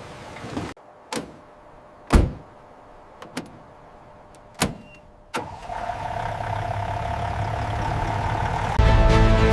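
A handful of separate sharp knocks, then a motor starting up and running with a steady, slowly building hum. Music comes in near the end.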